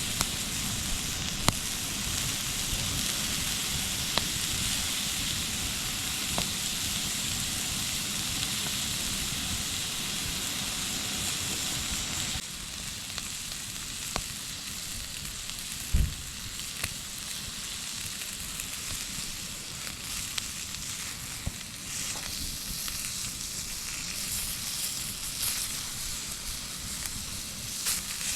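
Wood campfire burning with a steady sizzling hiss and a few sharp pops, and one heavier knock about sixteen seconds in; the hiss thins a little after about twelve seconds.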